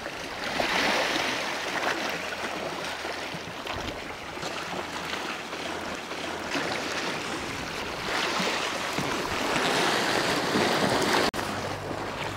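Sea waves washing against a rocky shore: a steady rush that swells about a second in and again near the end.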